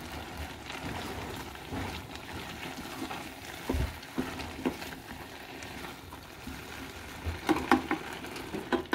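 A wooden spatula stirring and scraping okara (unohana) in a stainless steel saucepan over a gas flame, with a steady low sizzle from the pan. Near the end come several sharper knocks of the spatula against the pan.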